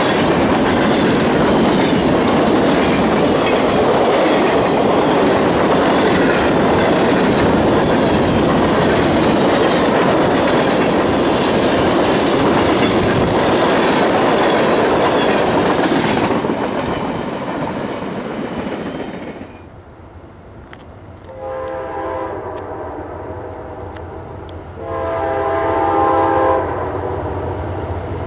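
Freight cars (tank cars and covered hoppers) rolling past close by, with a loud steady rumble and clatter of wheels on rail that fades away about two-thirds of the way through. Then an approaching locomotive sounds its multi-note air horn in two long blasts.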